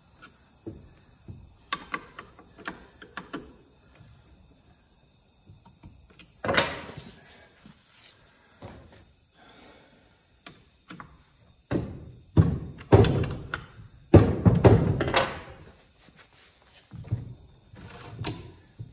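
A chainsaw's bar and chain being adjusted and handled with a scrench on a wooden workbench. There are scattered light clicks, and about two-thirds of the way through comes a run of louder knocks and clatters.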